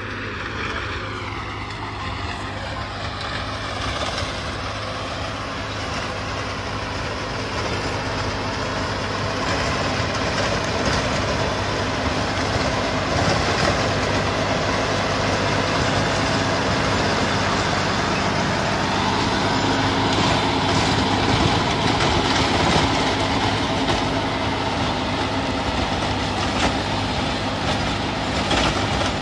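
Tractor diesel engine running steadily under load, driving a tractor-mounted rotary tiller that churns through soil and crop residue. It grows louder over the first ten seconds or so, then holds steady.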